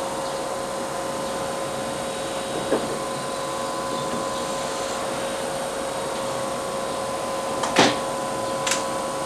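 Keihan 8000 series electric train standing at the platform, its onboard equipment humming steadily with a constant tone. A short, loud burst of noise comes about eight seconds in, followed a second later by a fainter hiss.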